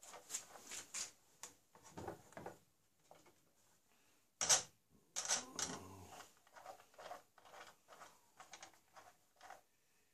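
Irregular scrapes and clicks from a small hand tool working at the metal head of a wooden rifling bench used to rifle a muzzleloader barrel, loudest about halfway through.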